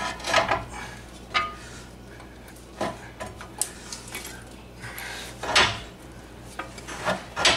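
Scattered metal clanks and clinks as the steel steering knuckle, with its brake rotor and caliper, is shifted against the new lower control arm while the ball joint is worked square into its socket. The loudest knock comes about two thirds of the way through, and one clink near the start rings briefly.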